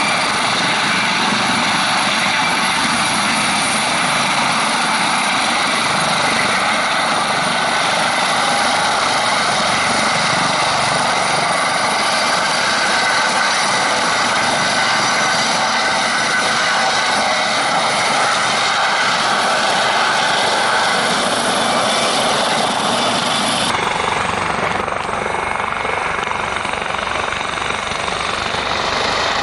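Eurocopter AS565K2 Panther helicopter running close by: a loud, steady turbine whine mixed with rotor noise. About three quarters of the way through, the highest part of the sound drops away abruptly.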